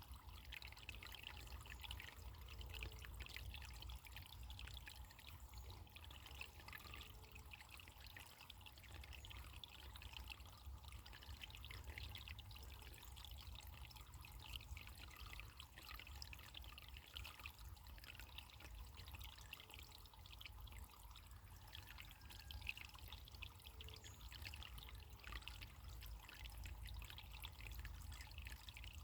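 Faint trickling running water, a steady splashing flicker with a low rumble beneath.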